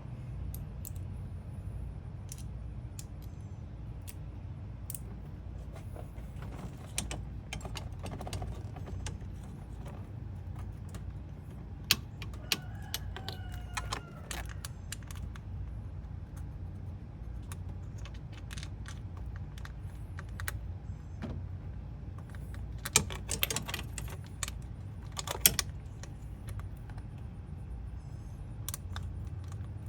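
Hand tools and metal parts clinking and clicking during work on an engine's front end: scattered sharp clicks, with a few louder clanks near the middle and again in the last third, over a steady low rumble.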